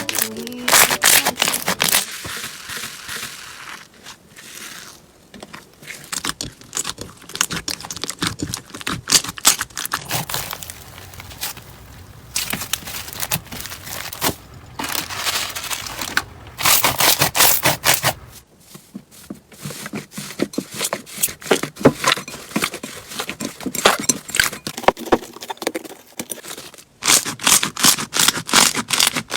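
Slime being squeezed, stretched and pressed by hand, with runs of crackling and popping clicks as it is worked, coming in clusters with quieter squishing between.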